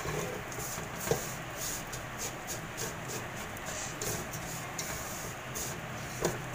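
Spatula stirring dry vermicelli frying in ghee in a steel pot: rustling and scraping over a steady hiss, with a knock of the spatula against the pot about a second in and again near the end.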